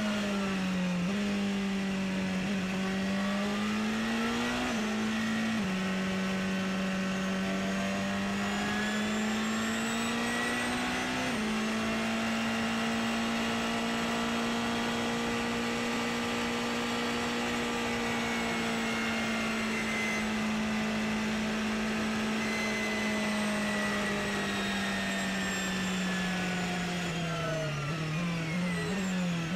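Porsche 919 Hybrid's turbocharged V4 heard from the cockpit under full acceleration: the engine pitch climbs and jumps at several upshifts in the first ten seconds or so, then holds flat out at a steady high pitch for about fifteen seconds. Near the end the pitch falls with a quick run of downshifts under braking, with a high whine gliding down above the engine.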